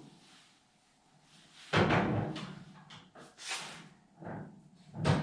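A few separate knocks and clunks of parts and tools being handled during work on a car, the loudest a heavy thud about two seconds in.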